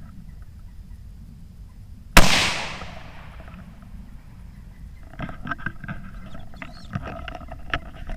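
.17 HM2 rimfire rifle fired once about two seconds in, a sharp crack whose echo fades over about a second. Small clicks and rustling follow in the second half.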